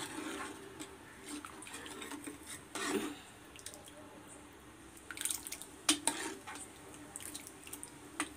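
Steel ladle stirring thin lentil sambar in a metal pan: liquid sloshing and dripping, with scattered clinks and knocks of the ladle against the pan, the loudest a little before six seconds in.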